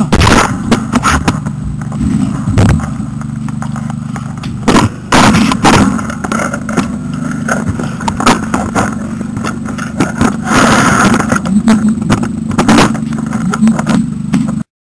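Repeated knocks, scrapes and rattles of a control pole with its mounted camera being handled, over a steady low engine hum like an idling vehicle.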